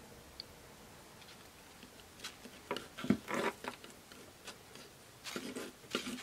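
Palette knife scraping, tapping and squishing through a wad of gesso and glaze medium on a work mat as the two are mixed, in scattered short strokes that start about two seconds in, with a few light knocks from the bottles being handled.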